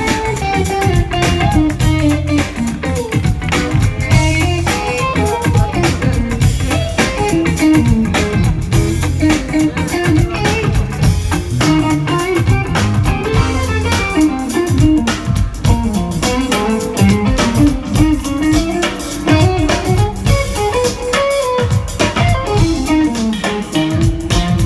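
Jazz-funk band playing live: two electric guitars, bass guitar and drum kit in a steady groove.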